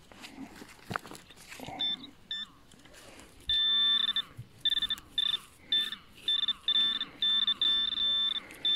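Garrett Pro-Pointer pinpointer sounding its alert: two short high beeps about two seconds in, then from about three and a half seconds a run of repeated beeps at one fixed pitch, some short and some held, as the tip is probed into a dug hole. The beeping signals a metal target close to the tip. Faint scrapes and rustles in dry grass and gravel come before it.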